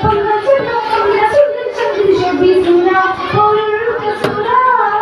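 A girl singing a Mappila song (mappilappattu) solo into a microphone, holding long notes with curving ornaments between them.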